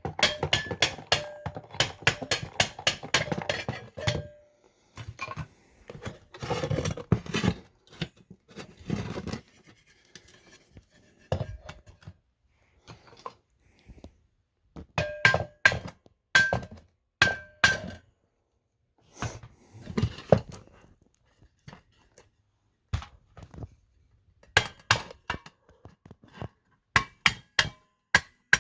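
Metal sewing-machine parts being knocked, tapped and pushed into place: bouts of sharp knocks and clinks with a brief metallic ring, separated by quiet pauses.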